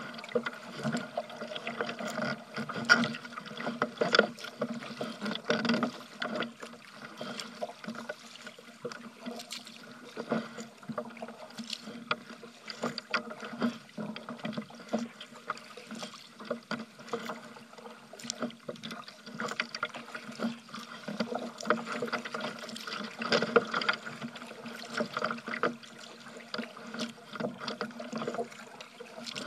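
Water splashing and slapping against a kayak's hull, with paddle strokes in choppy water: irregular splashes, some louder than others.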